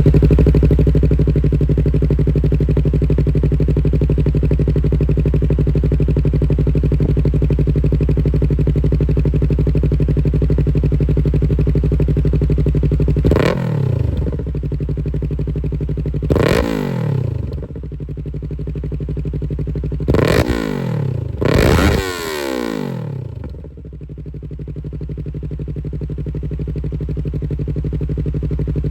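Yamaha R3's parallel-twin engine running through an aftermarket KO Lightning full exhaust with long muffler, idling steadily just after starting. About halfway through it is revved four times, each rev dropping quickly back to idle, the last two close together.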